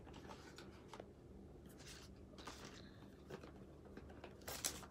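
Faint rustling and light clicks of small objects being handled while the box for the makeup pencils is fetched, with a short cluster of sharper clicks near the end.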